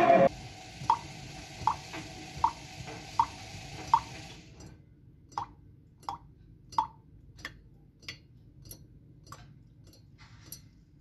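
Water drops falling one by one into a glass of water, a plop about every three quarters of a second, over a faint hiss that stops about four and a half seconds in; after that the drops are fainter and sharper. A song cuts off right at the start.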